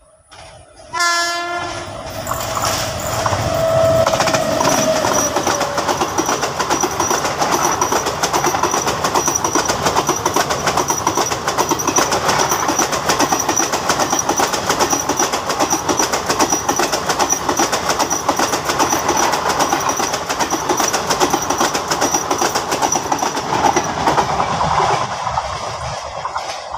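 Indian Railways superfast express with ICF sleeper coaches passing at speed. The horn sounds a short blast about a second in, then a longer note that sags slightly in pitch as the locomotive goes by, followed by a long rapid clatter of wheels over the rail joints with a steady high whine, fading near the end as the train recedes.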